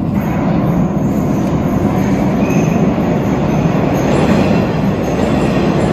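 Kyiv Metro train running past through the tunnel: a loud, steady rumble of wheels on rails, with brief high squeals from the wheels now and then.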